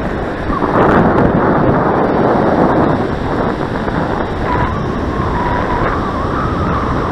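Strong sea wind buffeting the microphone, with surf behind it. A faint wavering whine comes in about two thirds of the way through.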